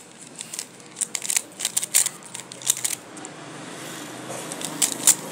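A plastic 3x3 Rubik's cube being turned quickly by hand, its layers clicking in rapid, irregular runs of snaps, sharpest about two seconds in and again near the end.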